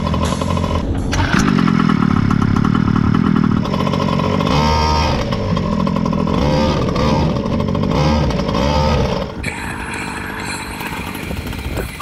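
Small two-stroke gasoline engine of a large-scale RC monster truck running and revving up and down, heard from a camera mounted on the truck. The level drops about nine and a half seconds in.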